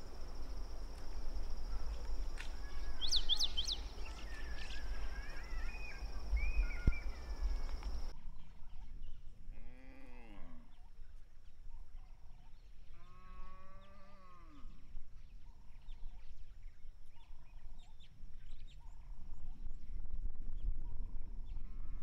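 Birds calling at dusk: bright high chirps and falling whistles over a steady high insect drone. After a sudden change of background about a third of the way in, a soft note repeats about once a second, broken by two louder, drawn-out calls.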